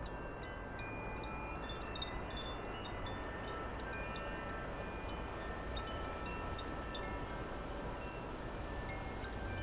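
Wind chimes ringing irregularly, scattered clear tones at several pitches overlapping, over a low rumble of wind on the microphone.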